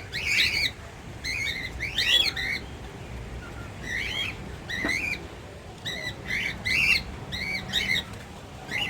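Aviary birds calling: a run of short, arching squawks and chirps, several voices overlapping and repeating every second or so.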